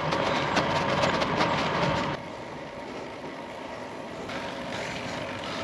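Riding noise from a gravel bike on a tarmac road: a rushing hiss with quick clattering rattles. About two seconds in it drops suddenly to a quieter, steadier rush.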